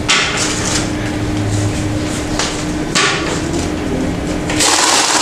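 Newmark DMS-680T banknote counting machine running, a steady motor hum under the rustle and flutter of paper notes passing through its rollers, with louder rushes of paper at the start, about three seconds in, and near the end.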